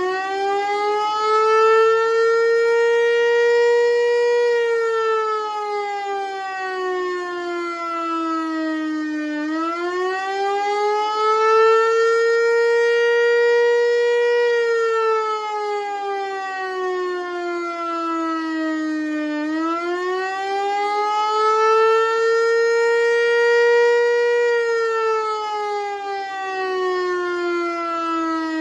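Federal Signal Eclipse 8 electronic outdoor warning siren sounding its attack signal: a loud wailing tone that rises quickly, holds for a couple of seconds, then falls slowly. It repeats about every ten seconds, about three times.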